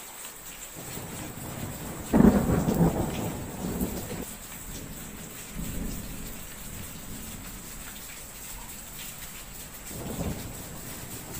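Steady rain with thunder. A sudden loud thunderclap comes about two seconds in and rumbles away over the next two seconds. Fainter rolls of thunder follow, one near the middle and one near the end.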